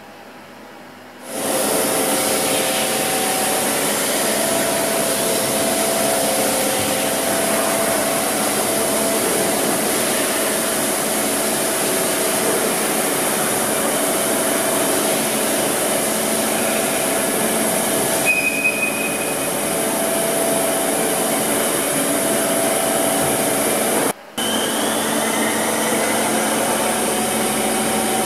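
Hyundai Wia KBN-135 CNC horizontal boring and milling machine running: a steady, loud mechanical whir with several steady tones that starts abruptly about a second in. A brief higher tone comes about two-thirds of the way through, and a faint rising whine follows near the end.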